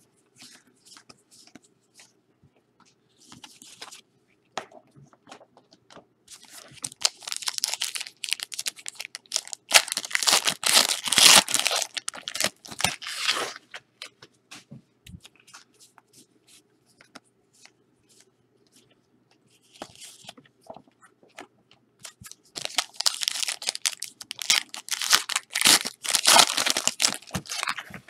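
Plastic trading-card packaging being torn open and crinkled by hand, in two long spells: one from about six to fourteen seconds in, another from about twenty-two seconds to the end, with small handling clicks between.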